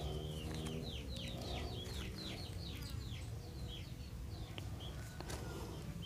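A bird chirping: a fast run of short, falling, high notes, thinning out after about three seconds. A low steady hum underneath fades out about a second in.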